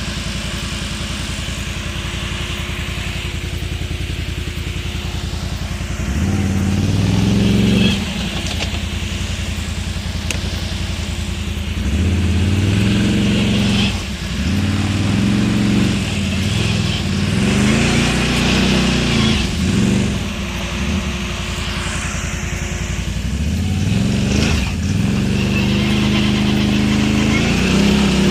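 Can-Am Outlander XMR 1000 ATV's Rotax V-twin engine through dual slip-on exhausts, running at low revs and then revving up again and again as the throttle is opened in surges every few seconds.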